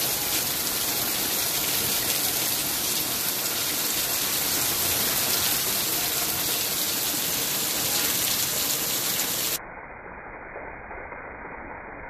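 Heavy rain pouring down steadily and splashing onto a flooded backyard patio. About nine and a half seconds in, the sound turns abruptly quieter and more muffled.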